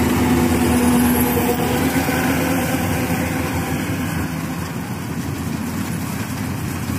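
Yanmar AW82V crawler combine harvester's diesel engine running steadily under load while harvesting, easing a little quieter after about two seconds as the machine pulls away.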